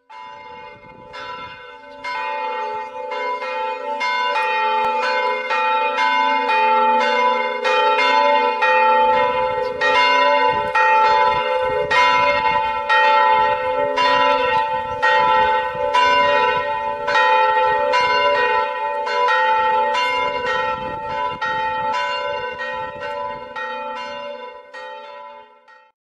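Church bells ringing, struck about twice a second with long ringing overlapping tones. The peal swells in over the first few seconds and fades away near the end.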